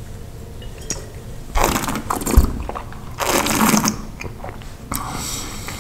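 Two short slurps, each about half a second, as red wine is sucked in with air and swished in the mouth during tasting. Between them comes a low thud, a wine glass set down on the table.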